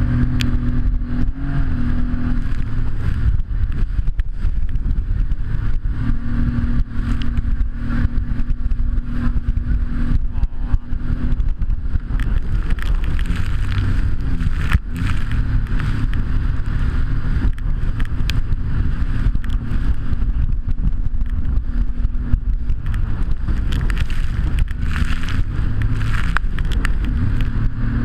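Jet ski engine running under way: a steady engine note that drops away and comes back a few times over heavy low rumble. Frequent clicks and rubbing on the microphone run through it.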